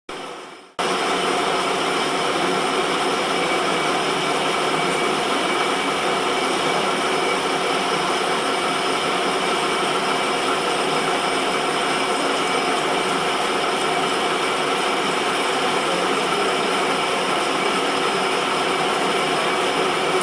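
Metal lathe running steadily, its gearbox whining with several steady tones, while the carriage on power feed takes a facing cut across the end of the workpiece. The sound starts abruptly about a second in.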